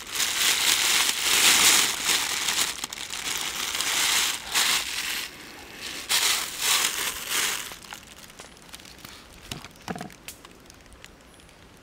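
Loud rustling and crackling as a mass of live water snakes is tipped into a wicker basket and slides and writhes over the wicker, in several surges. After about eight seconds it drops to faint scattered clicks.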